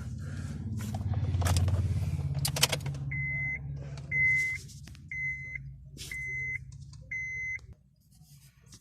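Five short electronic beeps at one high pitch, about one a second, over a low steady hum that stops near the end. A few clicks come just before the beeps.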